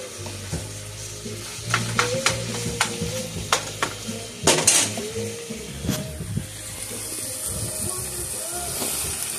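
Ground beef and onions frying in a nonstick frying pan, sizzling while a spatula breaks up and stirs the meat. A run of sharp knocks and scrapes of the spatula on the pan comes in the first half, loudest about halfway through, and then the sizzle goes on more steadily.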